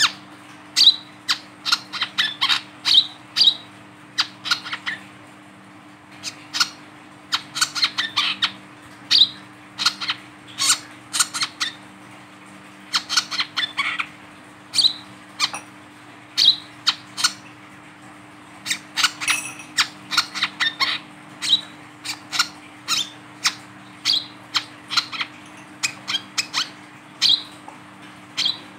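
Male brown-throated sunbird calling while held in the hand: a long, irregular run of short, sharp chip notes, often several a second in quick clusters, with brief pauses between them.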